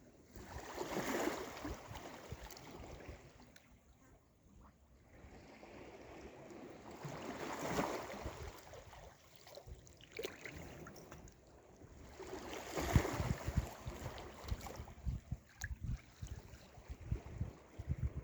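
Sea waves breaking and washing in, three surges of noise about six seconds apart, with wind buffeting the microphone in low gusts, strongest in the later part.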